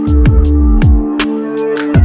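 Electronic music with a heavy beat: deep bass kicks that drop in pitch, crisp hi-hats and a sustained synth line.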